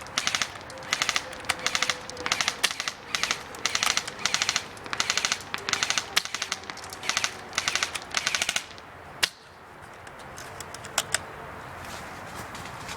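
Airsoft guns firing short full-auto bursts of rapid shots, one burst after another for about nine seconds, then a few single shots.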